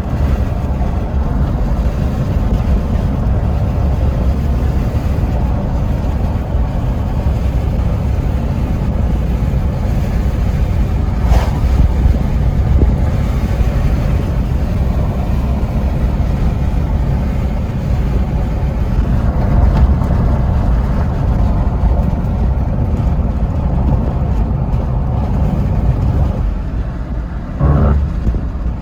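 A car driving, with a steady low rumble of engine and road noise; a brief click about eleven seconds in and a short knock near the end.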